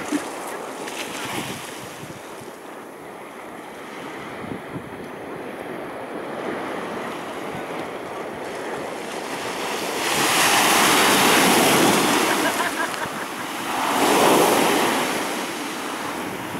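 Sea surf washing against a stone seawall and its steps in a steady rushing wash. About ten seconds in, a wave breaks with a louder surge lasting a few seconds, followed shortly by a second, shorter one.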